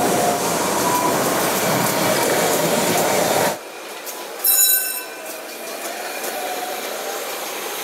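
Lisbon's old yellow trams running on street rails: a steady, loud rumble with the wheels squealing in a faint, wavering whine. About halfway through, the sound drops suddenly to a quieter rumble, broken by a short, bright ringing note.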